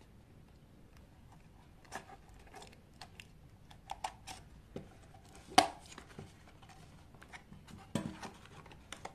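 Hands opening a small cardboard retail box: scattered light rustles and clicks of the cardboard flaps and tabs, with one sharper click a little past halfway.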